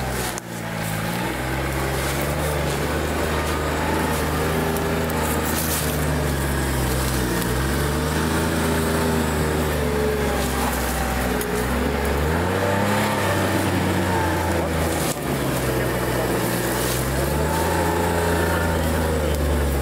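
All-terrain vehicle engine running hard under load, its pitch rising and falling repeatedly as the throttle is worked.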